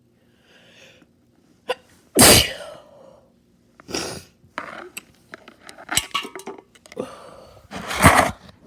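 A person sneezing wetly: two loud sneezes about six seconds apart, one a couple of seconds in and one near the end. Smaller sneezes or sharp breaths and a few clicks come between them.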